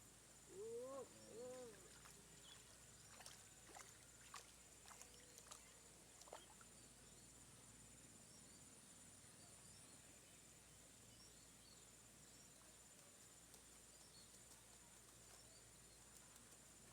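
Near silence outdoors: a faint, steady high insect chirring, with a brief pitched call about a second in and a few soft clicks shortly after.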